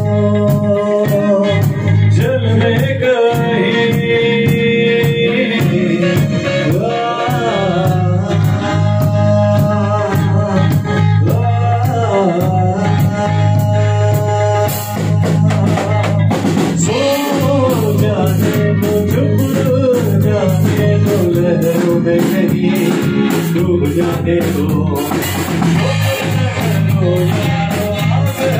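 Live rock band playing: drum kit with steady cymbal strokes, bass guitar and electric guitar, with a singer's voice over a microphone.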